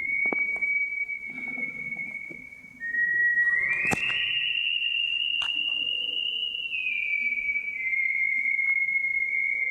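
A person whistling a tune in long held notes. The whistle slides up to a higher note a few seconds in, holds it, then glides back down, with a few faint clicks alongside.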